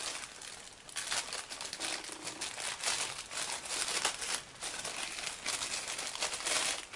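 Plastic packaging of a USB cable crinkling and rustling as it is handled and unwrapped, a continuous run of crackles that stops just before the end.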